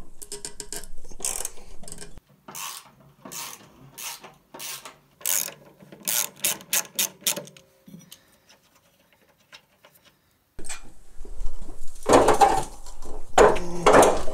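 A socket ratchet clicks in short strokes, faster near the end, as bolts are backed out of a mower-deck spindle housing. After a pause, louder rough scraping and handling noise fills the last few seconds.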